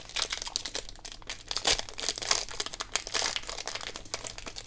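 Plastic wrapper of a Select basketball trading-card pack crinkling as it is handled and torn open, a dense run of crackles that is loudest about a second and a half in.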